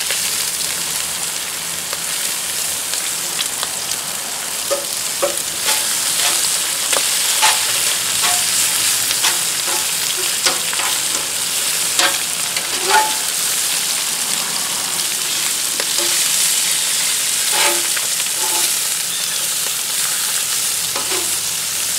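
Bacon and cabbage sizzling on a hot Blackstone griddle: a steady frying hiss with scattered pops and clicks as metal tongs turn the bacon on the plate.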